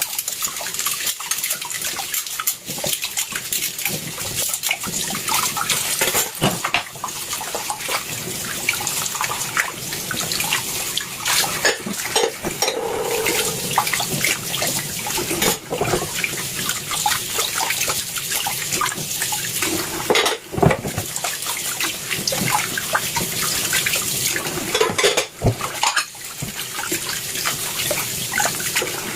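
Tap water running steadily into a sink while dishes are washed by hand, with frequent clinks and knocks of plates and cutlery.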